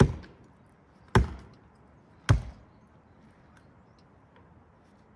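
Three heavy axe blows struck into a big tree at its cut, about a second apart, each a sharp knock with a short ring-out.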